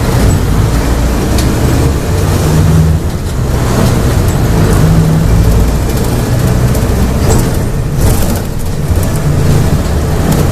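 Diesel engine of a Volksbus 17-230 OD bus running hard at high revs under heavy throttle, its pitch rising and falling several times.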